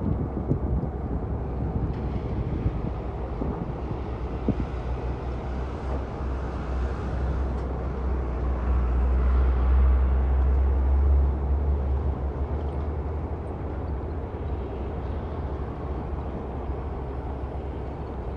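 Heavy diesel machinery running, a steady deep rumble that swells louder for a few seconds around the middle and then eases back.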